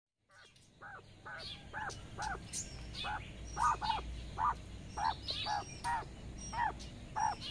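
Quail hen calling her chicks with short repeated calls, about two a second, with thin high peeping from the chicks among them.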